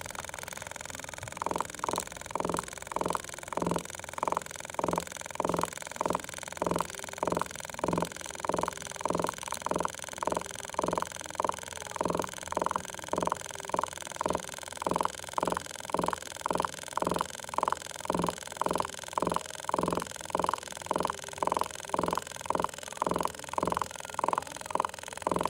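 Meta V digital SMP auto machine's pen handpiece buzzing in short, evenly spaced pulses, about two a second, each pulse driving the needle to set one scalp micropigmentation dot. The pulsing starts about a second and a half in.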